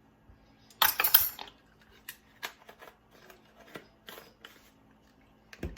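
A spoon and seasoning containers clink and tap while spices are measured by the teaspoon into a bowl. A loud burst of clattering comes about a second in, then scattered lighter taps, and a sharper knock near the end.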